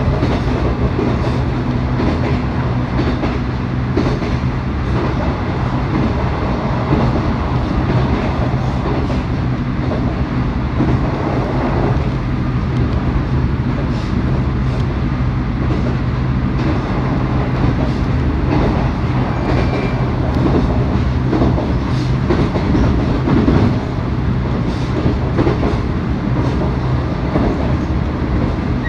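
JR East 719 series electric multiple unit running at speed: a steady low motor hum over the rumble of the wheels, with the clickety-clack of rail joints. The hum fades out about three quarters of the way through.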